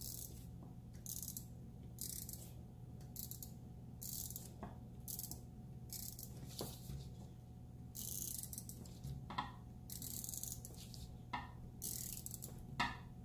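Handheld correction-tape roller drawn across a paper planner page in repeated short strokes, a dry scratchy rasp a little more than once a second, with one longer stroke about two-thirds through and a few light clicks in between.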